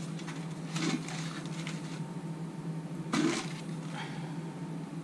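Baking paper and plastic wrapping being handled and crinkled, with two louder rustles about one second and three seconds in, over a steady low hum.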